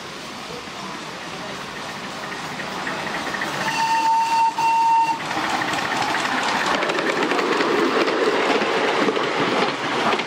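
Miniature railway train running on its track, wheels rattling on the rails, with a locomotive whistle sounding twice in quick succession about four seconds in. After the whistle the wheel clatter grows louder as a second miniature train passes close alongside.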